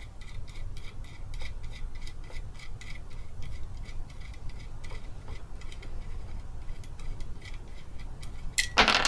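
Quick, faint metallic ticking, several ticks a second, as small bolts are worked loose by hand from the motor mounting of a White 173 sewing machine. A louder handling noise comes near the end.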